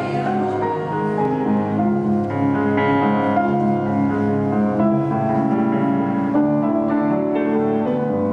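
Grand piano being played: a slow piece of held notes and chords over a bass line.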